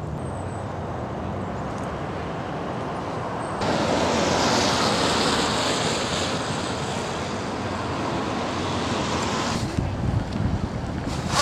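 Outdoor wind and road noise: a steady rumble, then a louder hiss from about four seconds in to near the end, where uneven gusts of wind buffet the microphone.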